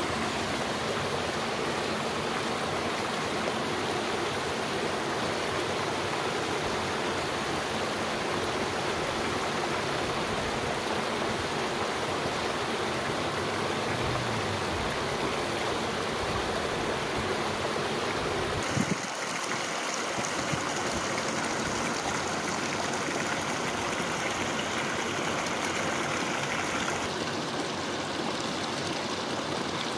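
Mountain stream rushing and splashing over rocks, a steady rush of water, with a single brief knock about two-thirds through.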